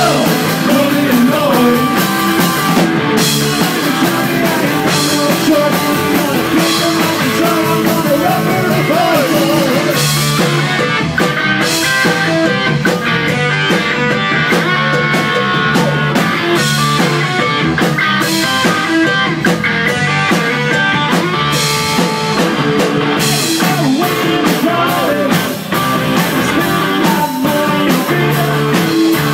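Live rock and roll band playing: electric guitars and a drum kit keeping a steady beat, with a man singing lead into the microphone.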